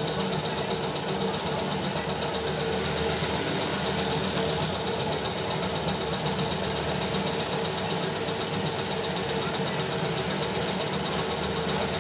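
Piston air compressor running steadily with a fast knocking rhythm, under the hiss of a gravity-feed spray gun spraying paint onto a motorcycle fuel tank.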